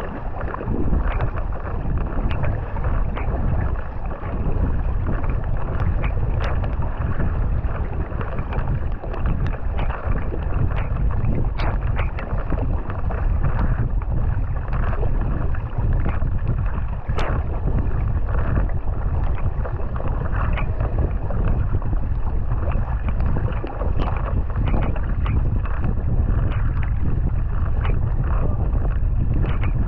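Water rushing and splashing along a racing kayak's hull, with the splash of the paddle blades at each stroke, and wind buffeting the microphone.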